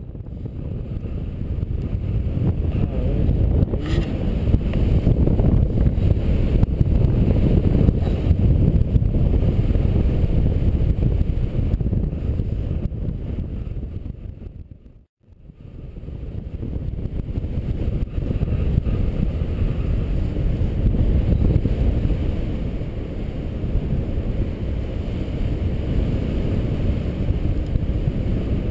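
Wind rushing over the camera microphone in flight under a paraglider: a steady, loud, low rumbling buffet. It fades out for a moment about halfway through and then comes back.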